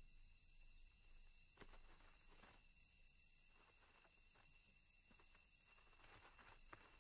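Near silence: a faint, steady, high-pitched chorus of night insects such as crickets, with a few faint ticks.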